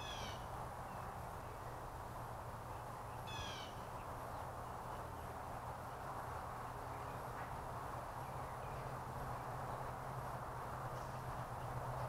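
A bird gives two short calls, at the start and about three seconds later, over a steady background hiss and low hum.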